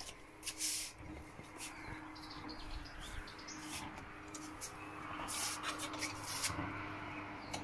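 Scattered light metallic clicks and scrapes of an L-shaped key working in a motorcycle's factory frame bolts as they are loosened by hand.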